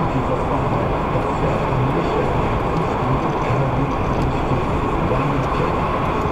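Steady road noise heard inside a moving car at speed: tyres on the road surface and the engine, with no sudden events.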